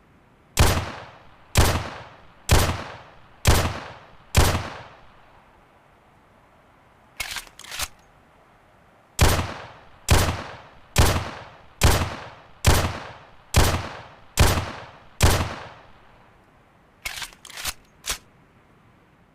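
11.4 mm pistol shots, a sound effect: five shots about a second apart, each with a short ringing tail. Then come a few quieter clicks, then seven more shots at the same pace, and a last cluster of quieter clicks near the end.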